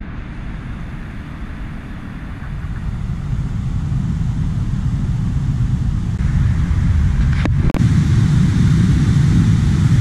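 Steady low rumble of wind buffeting the microphone, growing louder over the middle seconds, with two sharp clicks about three-quarters of the way through.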